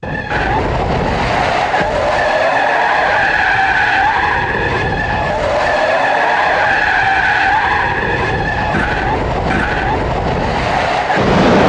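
Car tyres squealing in a long skid over engine noise. The squeal wavers in pitch and goes on without a break.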